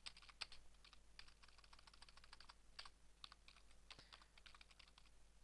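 Faint typing on a computer keyboard: a run of irregular keystroke clicks as code is typed in.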